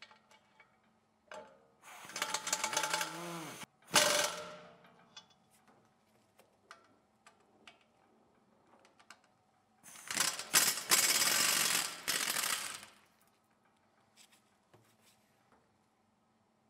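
Pneumatic impact wrench hammering in two bursts of two to three seconds each, loosening the fasteners on a wheel hub; the first burst ends in a sharp knock. Light clicks and knocks of handling between.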